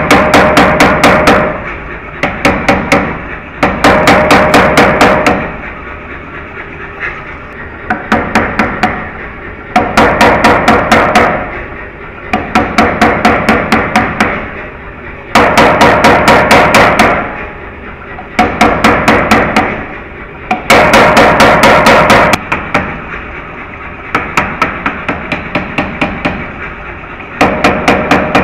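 Power hammer pounding a bar of white-hot, sparking steel in short runs of rapid blows, about six a second, each run lasting a second or two with brief pauses between. The blows forge-weld the folds of blister steel into shear steel.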